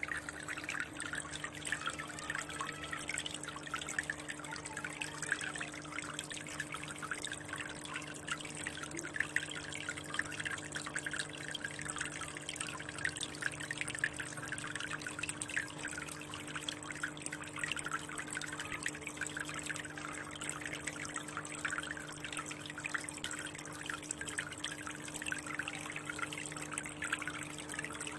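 Water trickling and dripping steadily into a fish tank, a dense fine crackle of small splashes, over a steady low hum.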